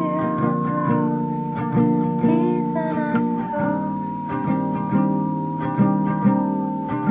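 Background music: plucked acoustic guitar with a long held high note above it.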